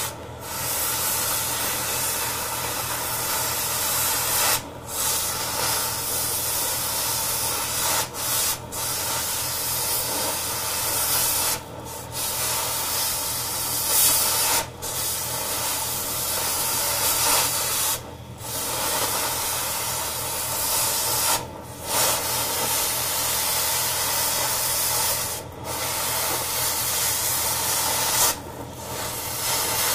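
Oxy-fuel cutting torch hissing steadily as it cuts and gouges away old weld on a steel hydraulic cylinder pin support. The hiss breaks off briefly about every three to four seconds.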